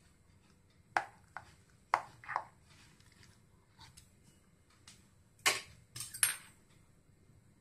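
A metal knife cutting through chilled vermicelli pudding in a glass baking dish, its blade knocking and scraping against the glass: a few separate sharp clicks, then the loudest cluster of three in quick succession near the end.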